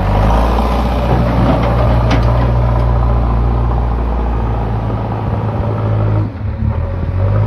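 JCB backhoe loader's diesel engine running steadily under load with a low rumble; the engine note drops briefly a little over six seconds in, then picks up again.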